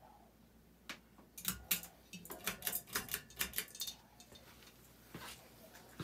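A single click about a second in, then a quick run of sharp clicks and clattering knocks for about two and a half seconds, from a person moving about and working switches as the ceiling fan is switched on.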